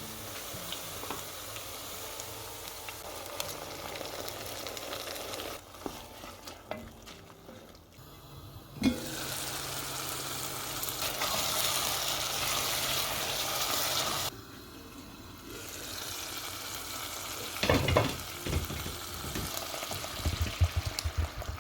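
Food sizzling as it fries in a pot, in several stretches of steady hiss that start and stop abruptly. A utensil stirs and knocks against the pot a few times near the end.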